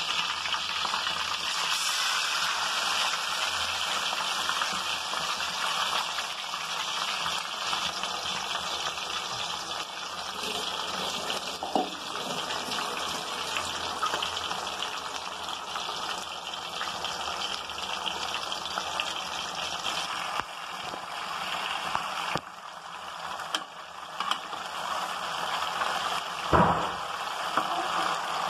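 Rabbit leg pieces deep-frying in hot oil: a steady bubbling sizzle. Near the end come a few louder knocks as a slotted spoon turns the pieces in the pan.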